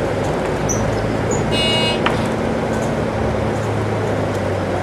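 Inside a Volvo 8400 low-floor city bus on the move: the diesel engine's steady drone under the rush of the air-conditioning blower. About one and a half seconds in, a short high-pitched buzzer-like tone sounds for about half a second, followed by a small click.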